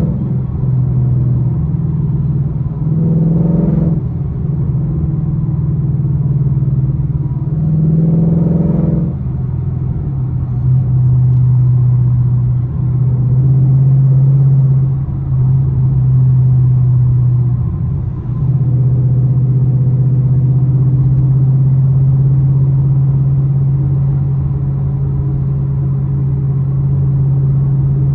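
Ford Mustang GT's V8 with a loud exhaust, heard from inside the cabin while driving. The engine note swells twice in the first ten seconds, then settles into a steady low drone while cruising.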